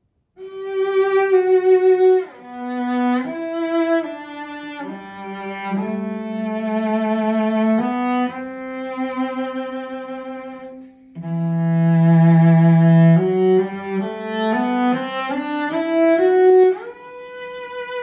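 A 1987 Grimley/Foster bench-made 7/8-size English cello played with the bow: a slow melody of long sustained notes, with a louder low note about eleven seconds in, ending on a long held higher note.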